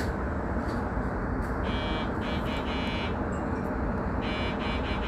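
Steady low rumble of a stopped electric train's onboard equipment, with two short bursts of a high electronic buzzing tone, each broken into a few pulses, about two and a half seconds apart.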